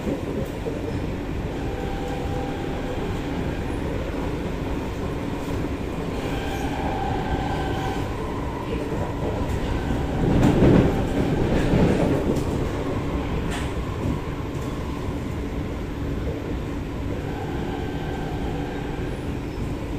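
Cabin noise of an SMRT C751B (Kawasaki–Nippon Sharyo) metro car running at speed: a steady rumble of wheels on rail with faint motor tones. It swells louder for about two seconds halfway through.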